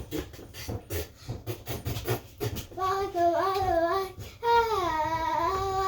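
A rapid patter of clicks and rustling for the first couple of seconds. Then a high voice sings or wails without words, its pitch wavering and bending, breaking once and sliding down before holding a note.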